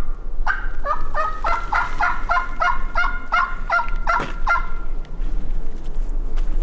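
Turkey calling: a fast, even run of about twenty short yelping notes over roughly four and a half seconds, with one stronger note near the end before it stops.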